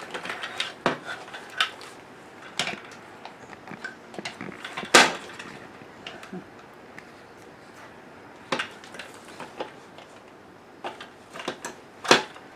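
Scattered clicks and knocks of hard plastic and metal food processor parts being handled and fitted into the black accessory storage rack, with a sharp knock about five seconds in and another near the end.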